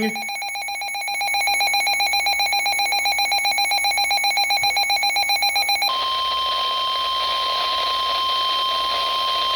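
Emergency Alert System attention tones from a radio receiver. A pulsing, multi-pitch electronic alert tone changes about six seconds in to a single steady tone. The tones herald a relayed severe thunderstorm warning.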